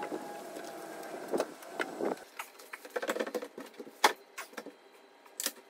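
Scattered light knocks and clicks of a trimmed interior door being handled and set back on its hinges, starting about two seconds in, over a faint steady background noise.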